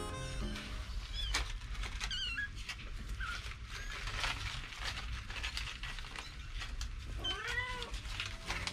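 Newborn kittens mewing: several short, high, thin, wavering cries, then a lower, longer mew near the end. Light rustling of the newspaper bedding underneath.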